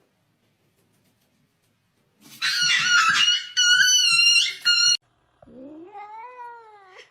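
A cat yowling: two loud, high-pitched drawn-out cries about two seconds in, then a quieter, lower meow that rises in pitch near the end.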